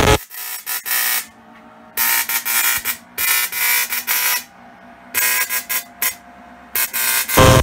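Spark-gap transmitter keyed in Morse code, sending CQ: the spark gap fires a loud, harsh buzz for each dot and dash, in short and long bursts with brief gaps between.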